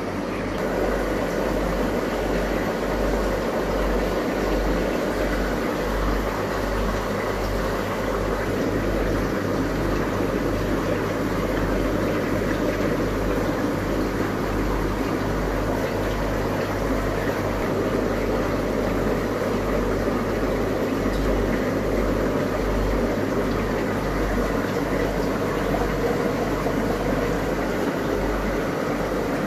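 Steady whir and bubbling of aquarium air pumps and filters, over a low, even hum.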